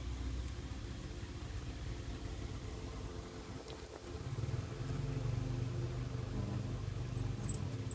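A motor running with a low steady hum, louder from about four seconds in.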